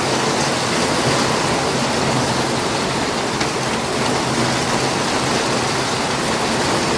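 Heavy rain pouring down onto paving, a steady even hiss that neither builds nor fades.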